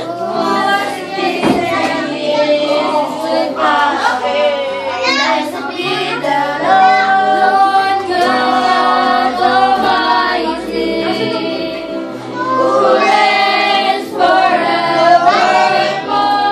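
A worship song playing: singing voices over music, with held, sliding sung notes.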